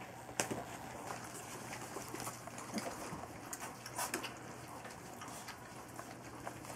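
Three-week-old golden retriever puppies lapping and smacking at soft food in a steel feeding pan and scrabbling over newspaper: a scatter of small irregular wet clicks and paper crinkles.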